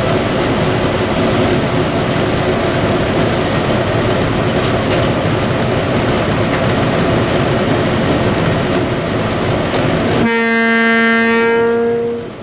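M62 diesel locomotive running under way, a loud steady engine and rolling drone heard from the cab. About ten seconds in the drone drops away and the horn sounds one steady blast of about two seconds.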